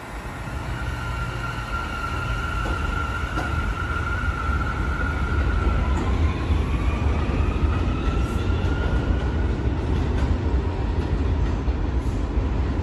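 New York City subway train on the BMT Jamaica Line pulling out of an elevated station, its traction motors whining over the heavy rumble of wheels on the steel el structure. The rumble builds over the first few seconds, and from about six seconds in a second whine climbs in pitch as the train speeds up.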